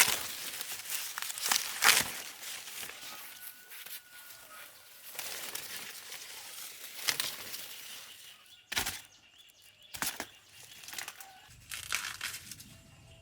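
Dry corn leaves and husks rustling and crackling as they are handled, with several sharp cracks along the way.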